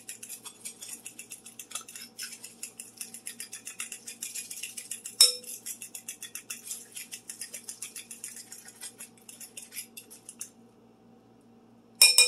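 A fork beating eggs in a glass bowl: a fast, even clicking of the tines against the glass, with one sharper clink about five seconds in. The beating stops about ten seconds in, and near the end the fork strikes the bowl twice with loud, ringing clinks.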